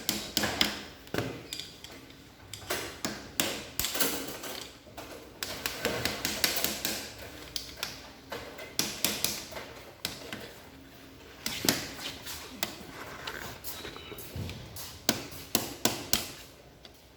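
Irregular tapping and knocking of hard objects, several light strikes a second with a few sharper, louder knocks, in uneven bursts.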